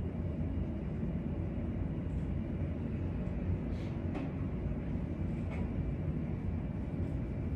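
Steady low rumble of classroom room noise, with a few faint clicks around four and five and a half seconds in.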